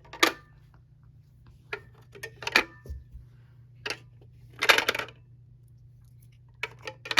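Drink bottles being put back into a vending machine's slots: a series of sharp clacks and clatters, about seven in all, with a longer clatter just past the middle, over a low steady hum.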